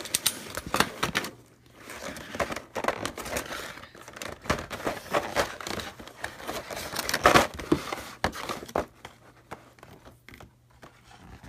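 Plastic packaging crinkling and rustling as it is handled and pulled open, with irregular crackles and clicks. It thins out to a few sparse rustles near the end.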